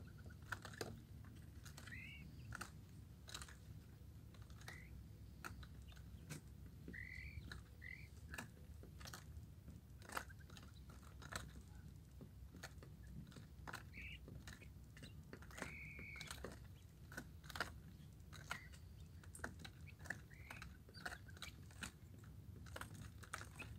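Caged quail pecking at kale leaves and the cage floor: faint, irregular soft clicks, with a few brief, faint chirps scattered through.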